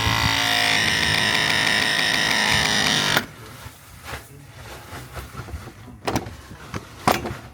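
A power tool's motor runs at a steady pitch for about three seconds, then cuts off sharply. Two sharp clicks or knocks follow near the end.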